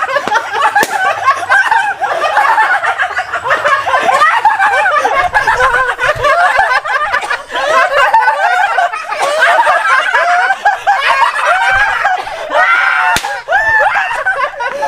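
Several high-pitched voices chattering and laughing over one another, with a few sharp cracks.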